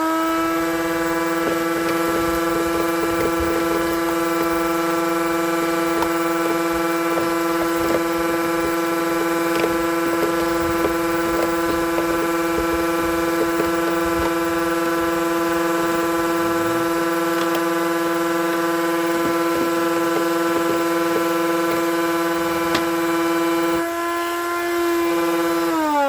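Shop vacuum running steadily with a high, even motor whine while it sucks mouse-nest debris out of a truck's engine air filter box, with faint scattered clicks. It is just up to speed at the start and winds down at the very end, its pitch falling.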